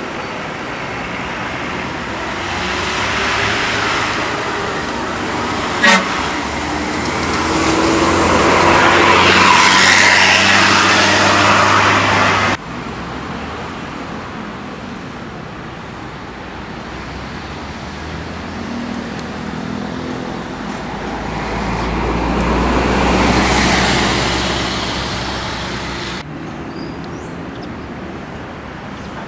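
Buses passing close on a toll road, their engine and tyre noise swelling and fading twice, with a short horn toot among them.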